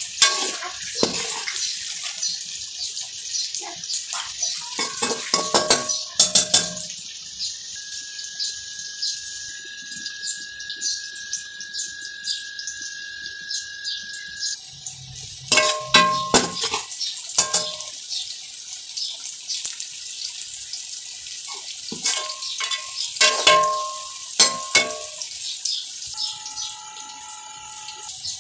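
Sliced onions sizzling in oil in a metal pot, with a metal spoon clinking and scraping against the pot in several short clusters, each strike ringing briefly. A steady high tone sounds for several seconds midway.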